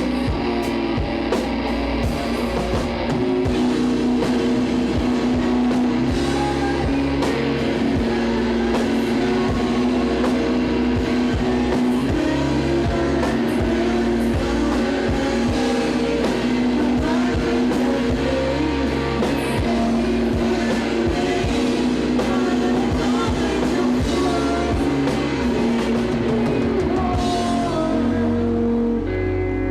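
Live rock band playing: electric guitars, bass and drum kit, with some singing.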